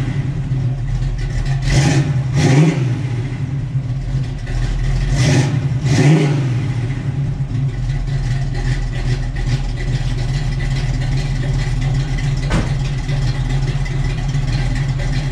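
Pontiac 400 V8 with a mild cam and Flowmaster exhaust running at idle. The throttle is blipped in two pairs of quick revs in the first six seconds, then the engine settles back to a steady idle.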